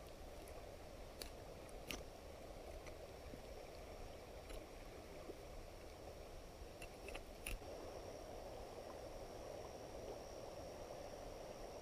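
Faint handling sounds: a few soft clicks and taps as a knife blade is worked into a small fish's head, over a steady quiet outdoor background with a thin high steady tone.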